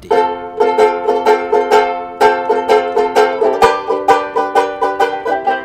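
Banjo ukulele strummed in a quick, even rhythm, about four strums a second, with no singing.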